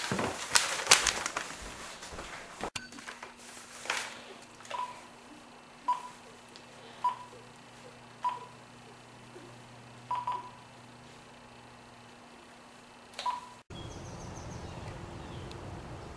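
Cordless phone keypad beeping as a number is dialled: a short single-pitched beep with a button click for each key press, about six presses at irregular intervals roughly a second apart. Near the end this gives way to a steady background hiss.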